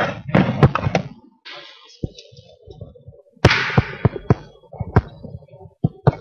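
Microphone being handled: sharp knocks and clicks with bursts of rustling, loudest at the start and again about three and a half seconds in, with a few single clicks near the end.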